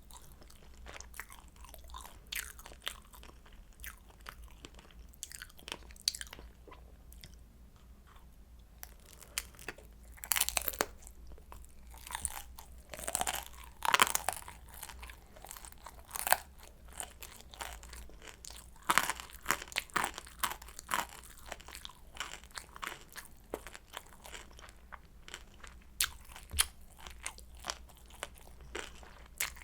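Crunchy bites and chewing of pan-fried kimchi dumplings, with the crisp crust cracking in short clicks and a few louder crunches near the middle.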